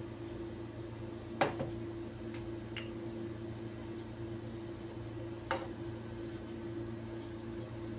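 Light knocks of a wooden rolling pin on a pastry board as dough is rolled out, a sharp one about a second and a half in and another about five and a half seconds in, with a few fainter ticks, over a steady low hum.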